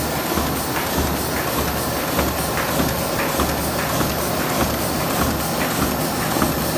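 Automatic sheet-fed paper embossing machine running at about 60 m/min, a steady mechanical din with a regular clacking about two to three times a second over a low pulsing hum.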